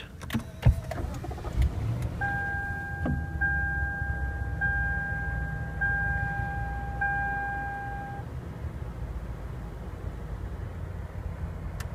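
2014 Lexus LS 460 F Sport's 4.6-litre V8 started with the push button, catching within about two seconds and then idling with a steady low hum, heard from inside the cabin. A dashboard warning chime beeps five times in a row, from about two seconds in until about eight seconds in.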